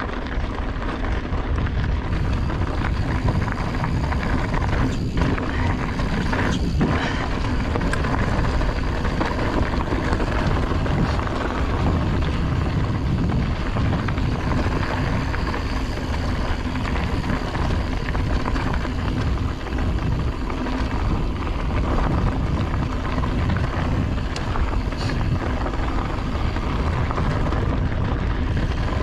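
Wind rumbling over the microphone of a mountain bike's handlebar camera as the bike rolls along a dirt trail, with tyre noise on the dirt. There are a couple of brief knocks about five and seven seconds in.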